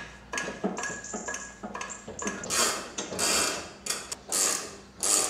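Metal clicking and clanking as a steel tow bar frame is offered up and its bolts are fitted loosely to the car's underside. There are quick short clicks for about two seconds, then several longer strokes about once a second.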